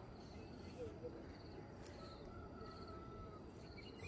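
Faint outdoor ambience: insects chirping in short buzzy trills about once a second over a low steady rumble, with a thin drawn-out tone in the middle.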